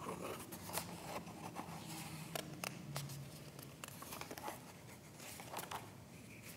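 Soft paper rustling and scattered small clicks as a picture book is opened, its pages handled and turned.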